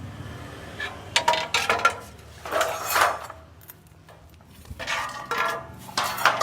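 Metal pieces clanking and rattling against one another in four short clusters, each clank leaving a brief metallic ring.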